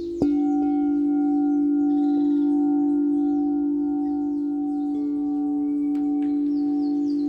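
Singing bowl struck about a quarter second in, then ringing on in a long, steady hum with several overtones; a second, higher tone joins about five seconds in.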